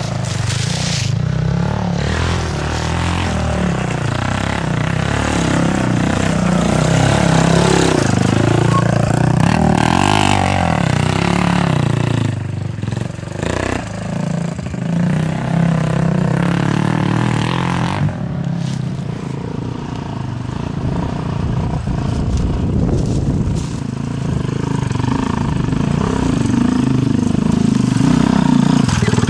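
Dirt bike engine revving hard under load on a steep hill climb, its pitch rising and falling repeatedly as the throttle is worked.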